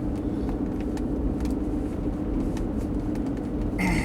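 Steady road and engine noise inside the cabin of a moving car, with a constant low hum.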